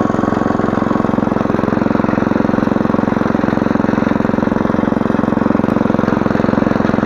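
Walk-behind rotary tiller's small air-cooled petrol engine running steadily under load as its tines churn the soil between crop rows.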